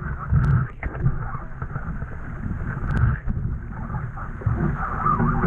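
Wind buffeting the microphone aboard a Laser Vago sailing dinghy under way, with water rushing along the hull. Two short sharp knocks about half a second and three seconds in.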